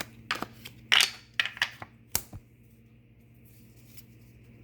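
Tarot cards being handled: a handful of quick snaps and taps in the first two seconds or so, then only a faint low hum.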